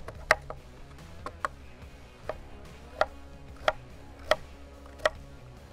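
Chef's knife cutting sweet potato into cubes on a plastic cutting board: about nine sharp knocks as the blade goes through and strikes the board, unevenly spaced, roughly one every half second to a second.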